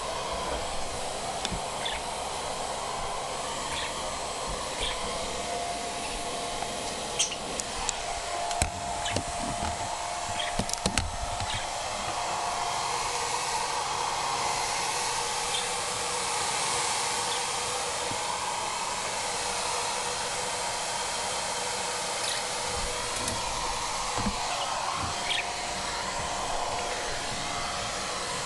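Electric blower running steadily, a hiss with a faint whine, starting abruptly. A few brief sharp clicks sound over it several seconds in.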